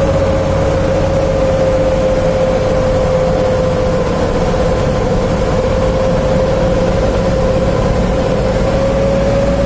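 Heavy truck's diesel engine running on the road through a 'wolf' (srigala) whistle exhaust. The exhaust gives one steady howling tone over the engine's low rumble. Its pitch sags slightly in the middle and rises again near the end.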